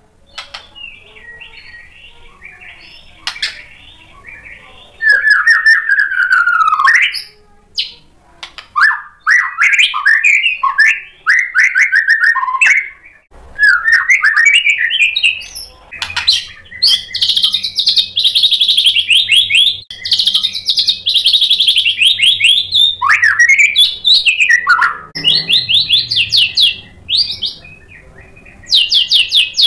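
White-rumped shama (murai batu) singing. Soft twittering gives way about five seconds in to loud phrases of rapid trills and sliding whistles, some very high, broken by short pauses.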